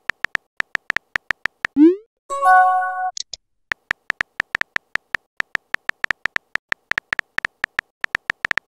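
Phone-chat typing sound effect: a quick run of identical short clicks, several a second. About two seconds in, the clicks pause for a rising pop and a short synthetic chime, a message-sent notification; then the typing clicks run on.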